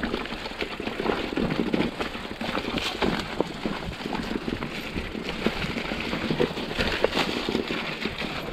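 Mountain bike clattering down a rough trail: a dense run of knocks and rattles over a steady rush of wind and tyre noise.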